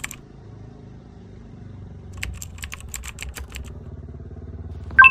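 Computer keyboard typing: a quick run of crisp key clicks about two seconds in, over a low steady hum. Near the end comes one short, loud hit with a bright ringing ding.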